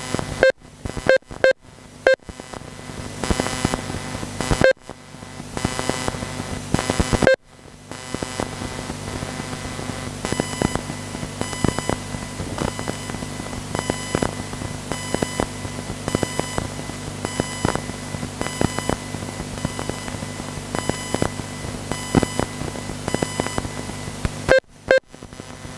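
Race lap-counting system beeping as the RC cars cross the timing line: a quick run of short beeps at the start, two single beeps a few seconds later, and another quick run near the end, over a steady electrical hum.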